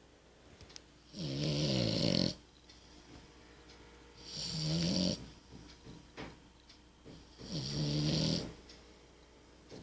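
French bulldog snoring in its sleep: three loud snores about three seconds apart, each about a second long, with quiet between breaths.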